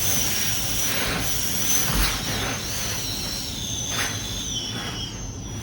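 Air whistling out of a self-inflating sleeping pad's open valve as the pad is pressed and rolled: a thin, high, wavering whine that sags a little in pitch in the second half, with a couple of brief rustles of the pad.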